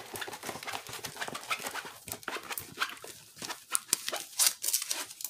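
Diamond-painting canvas with its plastic cover film being rolled up by hand: quick irregular crinkling and crackling of the film.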